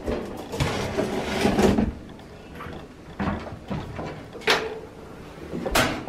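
Vertical modular top-load washing machine cabinet being handled and lowered back down: scraping and rattling of sheet metal and plastic for about two seconds, then three separate clunks.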